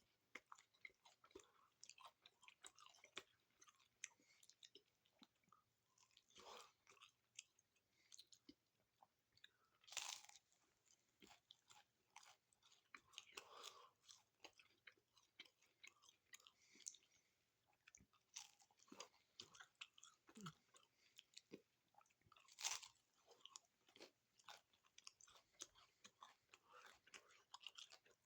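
A person chewing a hard Doritos Locos taco shell close to the microphone: many small, uneven crunches, with two louder bites, one about ten seconds in and one near twenty-three seconds.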